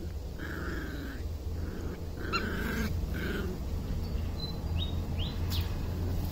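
Puppies play-fighting, yelping and whining: a few short high cries in the first half and two quick rising squeaks later, over the rustle of dry leaves and a steady low rumble.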